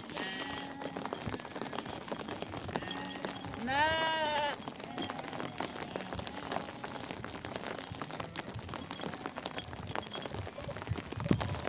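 Sheep bleating several times, the loudest a single drawn-out bleat about four seconds in, others fainter, with a scatter of light ticks, raindrops, underneath.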